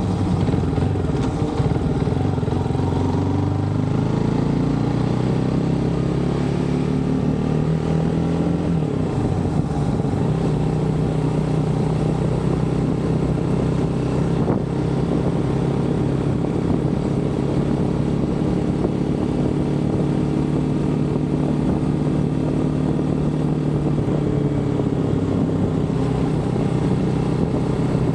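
GPX motorcycle engine running under way, rising in pitch as the bike accelerates over the first few seconds, then holding a steady note at cruising speed.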